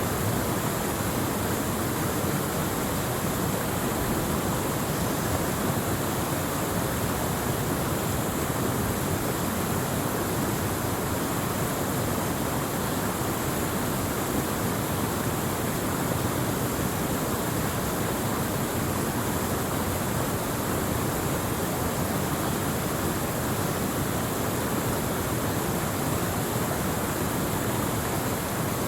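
Waterfall: steady rush of falling water, an unbroken hiss and roar with no change.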